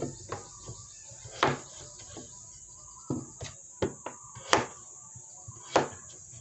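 Kitchen knife cutting potatoes into pieces on a wooden chopping board: irregular sharp knocks of the blade striking the board, about a dozen, the loudest about a second and a half, four and a half and nearly six seconds in.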